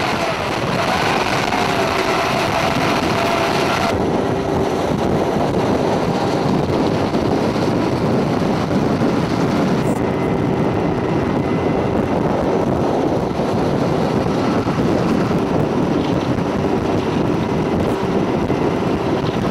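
A military vehicle running at road speed, heard from on board: steady engine drone and road rumble with wind buffeting the microphone. The sound shifts abruptly twice, about four and ten seconds in.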